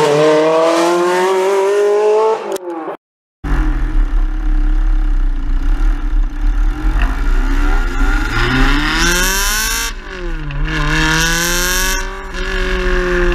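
Ferrari 360 Modena's 3.6-litre V8 heard at the exhaust tips under hard acceleration, the pitch climbing. It breaks off briefly about three seconds in, then comes back with a deep rumble underneath, climbs again, drops sharply at a gear change about ten seconds in and climbs once more.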